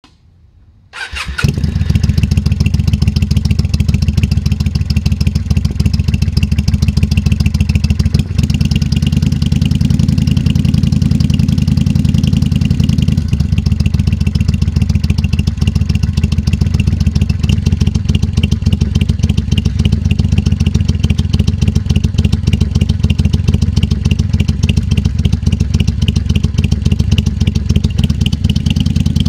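Kawasaki Vulcan 800's V-twin engine starting about a second in, then running steadily at idle through the exhaust.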